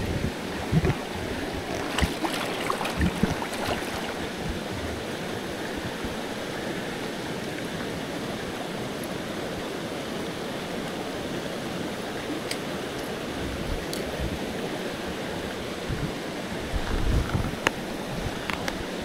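Shallow creek rushing steadily over rocks and riffles, with a few small knocks and rustles of handling near the start and again near the end.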